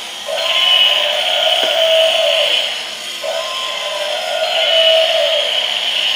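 Electronic sound effect from battery-operated toy animals: a wavering, bleat-like tone that loops, repeating about every three seconds with a short break between repeats.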